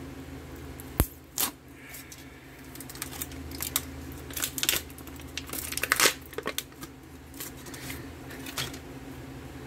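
Packaging being torn open and crinkled, a pilot bread cracker's wrapper opened by hand: a sharp click about a second in, then irregular bursts of tearing and crackling, densest midway, over a steady low hum.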